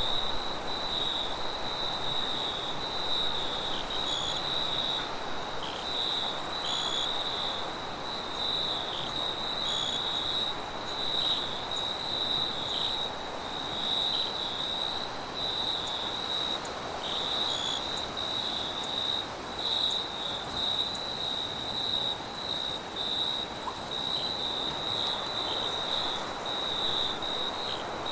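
Crickets chirping in a steady, pulsing trill without pause, with a fainter, higher insect note above it. Wind rushes underneath.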